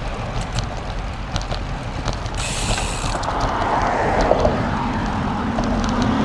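Wind rumbling on the microphone of a moving bicycle, with road traffic growing louder in the second half as a vehicle approaches.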